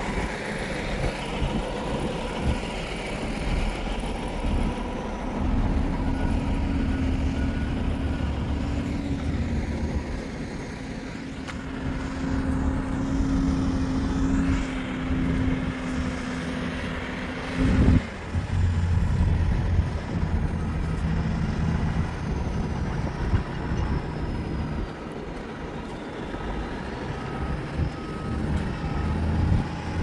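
Heavy diesel construction equipment, a semi dump truck and excavators, running steadily with a low rumble, its engine note changing after a sharp loud clank about halfway through. A faint backup alarm beeps in short repeated pulses at times.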